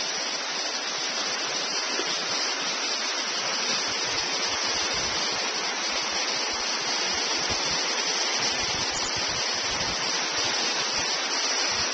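Steady rushing of a swollen river's fast whitewater at high flow, about 3,500 cubic feet per second.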